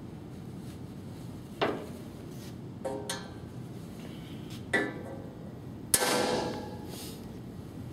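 Ball-peen hammer striking a center punch on sheet metal four times, each blow a sharp metallic clink that rings briefly. The fourth blow is the loudest and rings on for about a second.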